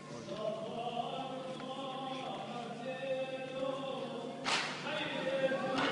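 A group of voices chanting or singing together in long held notes. There is a short burst of noise about four and a half seconds in.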